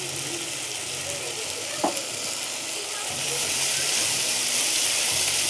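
Onions and tomatoes sizzling as they fry in a pan, a steady hiss that grows louder about three seconds in, with one sharp click a little under two seconds in.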